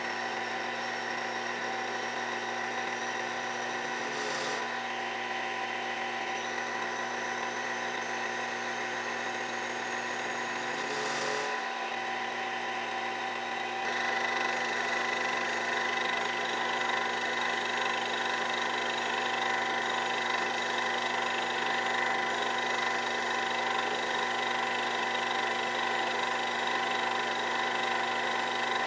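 Mini lathe running at steady speed, its motor and gearing giving a steady whine while the tool turns a taper on a brass oiler tip. The sound gets a little louder about halfway through, with two brief faint noises before that.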